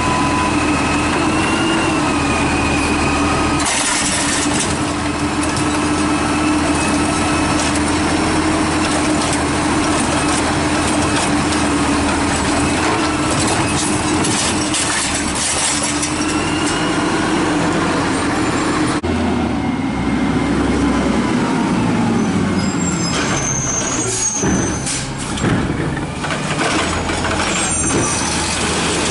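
An automated side-loader garbage truck runs at the curb while its arm grips a trash bin. Its engine and hydraulics make a steady whine that shifts slightly in pitch now and then. About two-thirds of the way through, the sound changes abruptly to a second side-loader truck idling.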